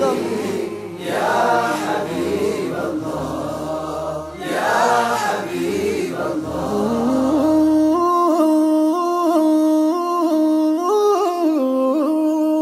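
A group of men singing a nasheed without instruments, with a low sustained part under the melody. About eight seconds in the group drops out and one man's voice carries on alone in long, ornamented held notes.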